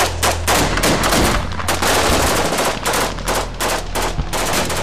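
Rapid, irregular gunfire from military rifles, with several overlapping shots a second, over a steady low hum.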